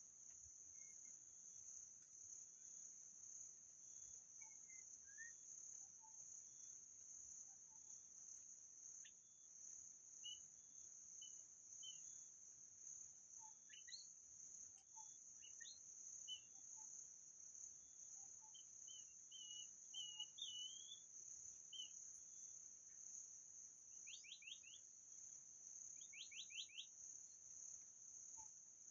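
Faint steady high-pitched insect drone, with scattered short whistled notes of white-rumped shama song over it and two quick runs of rapid notes near the end.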